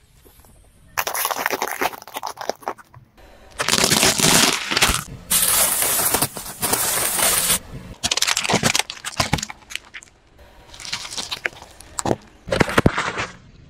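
A car tyre rolling slowly over small objects on pavement and crushing them, including glass marbles and small round sweets. It makes a series of crunching and crackling noises that come in several separate bursts, with short pauses between them.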